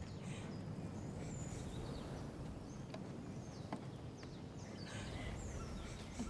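Outdoor ambience of scattered bird chirps, each a quick falling whistle, over a low steady rumble, with a couple of faint ticks.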